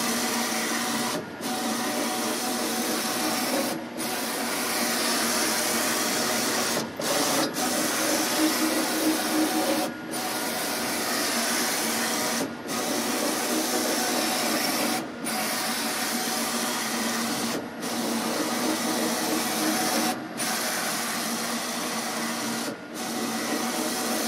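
Roland CJ-500 wide-format inkjet printer running a print job, its print-head carriage sweeping across the canvas with a steady mechanical whir that drops out briefly about every two and a half seconds.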